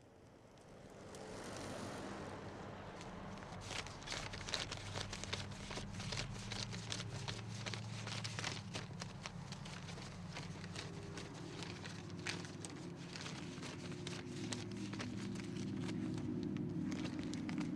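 Close handling noises: dense crackling and clicking, over a low steady hum that swells up over the first couple of seconds.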